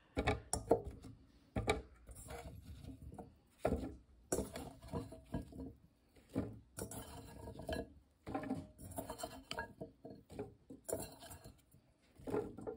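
Peeled parsnip pieces being dropped one after another into a stainless steel mesh colander: irregular knocks and light clatters with a brief metallic ring.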